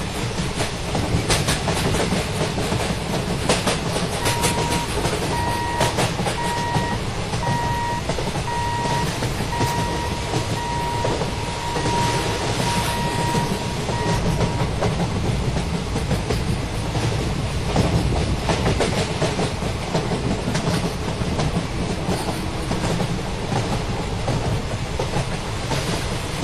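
Malda Intercity Express passing close by: a steady rumble, with its wheels clicking over the rail joints. A repeated beeping tone comes and goes from about four seconds in until about fourteen seconds.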